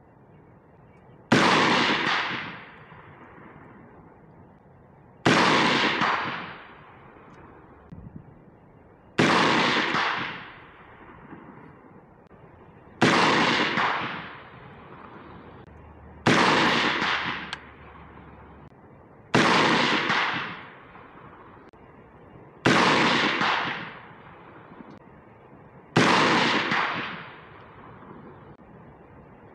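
Slow, aimed semi-automatic fire from a 16-inch direct-impingement (gas) AR-15, a Geissele Super Duty Heavy Barrel shooting 5.56 77-grain OTM rounds. There are eight sharp shots, one every three to four seconds, each trailing off over about a second, and a ninth right at the end.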